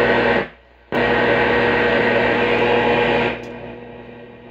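1938 RCA Victor K62 tube radio's speaker giving loud static with a steady hum under it as the set is tuned. The static cuts out briefly about half a second in, returns about a second in, and drops away after about three seconds.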